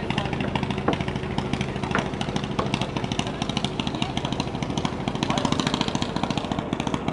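An engine running steadily, with a low hum and a fast, even pulse that doesn't change.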